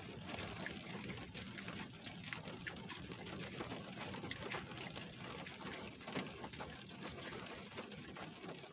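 Faint chewing of a crispy fried flauta, with scattered soft crunching clicks over a low steady hum.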